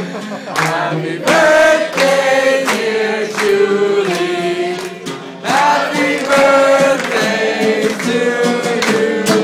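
A man singing, accompanying himself on a strummed stringed instrument.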